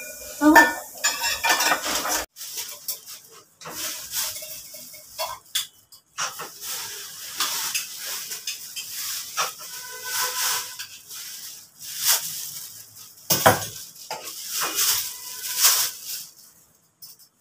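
Metal kitchen utensils and pans clinking and scraping against each other as they are handled at a stove, with a hiss between the clinks.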